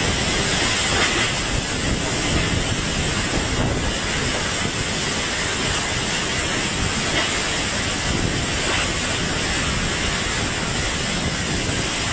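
Typhoon-force wind and driving rain: a steady, dense rush of noise with no let-up.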